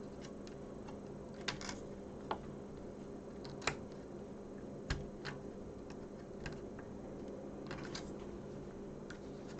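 Small irregular clicks and taps of hands working on the opened Sinclair QL, fitting its ribbon cables back into their connectors, about nine in all, over a steady low hum.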